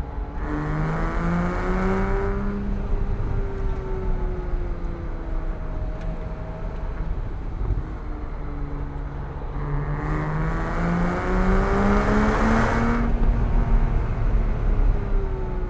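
Porsche 987.1 Cayman S's 3.4-litre flat-six pulling hard twice, its pitch climbing about half a second in and again around ten seconds in, each time followed by lifting off with the revs falling away slowly.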